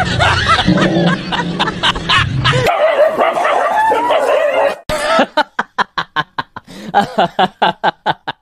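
A dog barking and yelping, ending in a quick run of short barks.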